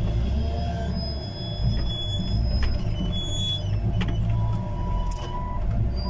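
Wheel loader's diesel engine running, heard from inside the cab as a steady low rumble.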